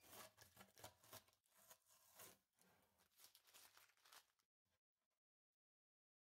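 Faint crackling and tearing of blue masking tape being peeled off a wooden bowl and crumpled in the hand, stopping about four and a half seconds in.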